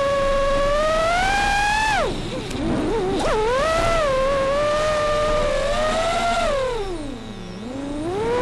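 Martian 220 FPV quadcopter's Xing brushless motors and propellers whining in flight, the pitch following the throttle. The whine holds steady, dips sharply about two seconds in and climbs back, then sinks low near the end before rising again.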